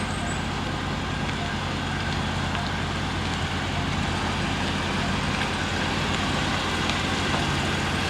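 A vehicle engine running steadily at idle, a constant low hum.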